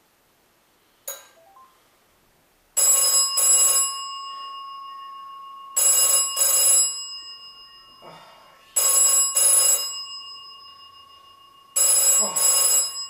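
Old black rotary telephone's bell ringing in the double-ring cadence, ring-ring, four times about three seconds apart, each ring ringing on and fading. A brief sharp click comes about a second in.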